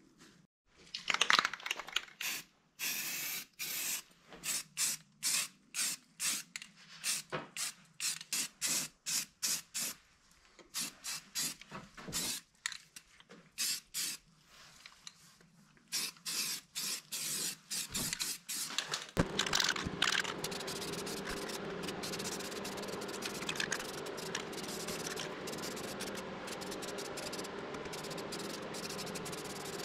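Aerosol spray-paint can spraying metal pedal-cluster parts in many short hissing bursts. About two-thirds of the way through, a steady low hum starts up and runs on beneath it.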